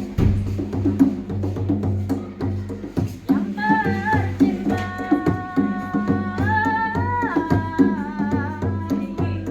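Live music being rehearsed: drums and percussion keeping a steady rhythm, with a high, held melody line with vibrato coming in about a third of the way through.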